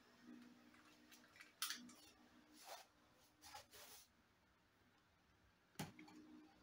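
Near silence: room tone with a faint low hum and a few soft clicks and rustles of small handling.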